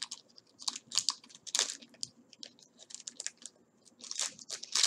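Foil wrapper of a Pokémon booster pack crinkling and crackling in the hands as it is opened, in short irregular bursts, loudest near the end.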